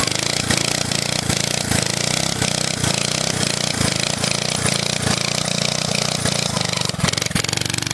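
5 hp Briggs & Stratton single-cylinder four-stroke engine on a mini bike running at full throttle and held under load while the rear tire spins and smokes on the asphalt in a burnout.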